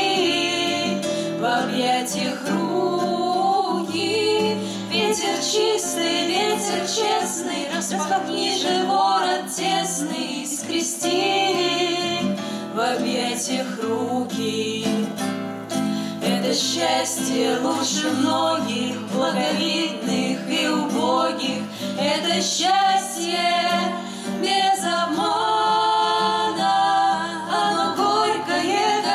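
Women's voices singing a song in Russian together in harmony, accompanied by a strummed and plucked acoustic guitar.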